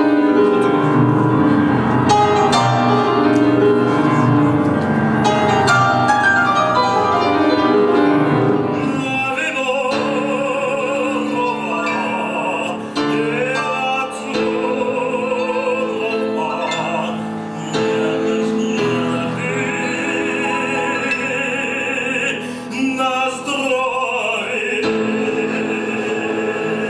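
Grand piano playing classical music, joined about nine seconds in by an operatic singing voice with wide vibrato over the piano accompaniment.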